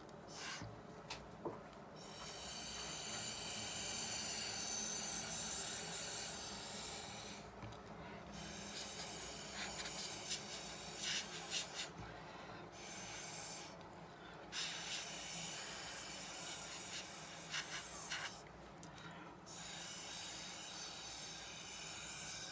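Air blown hard through a drinking straw onto wet watercolour paint: long hissing blows of several seconds each, about five of them, broken by short pauses for breath.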